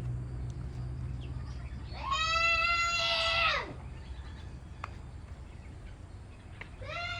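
Two drawn-out, meow-like animal calls that rise and then fall in pitch: a long one about two seconds in and a shorter one near the end.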